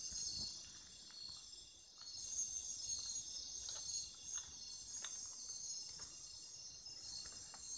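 A chorus of night-calling insects, a steady high-pitched trilling, with a few faint clicks and rustles scattered through it.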